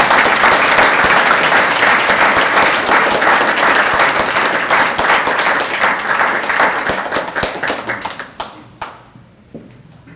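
Audience applauding, a dense patter of many hands clapping that tapers off and dies away about eight or nine seconds in.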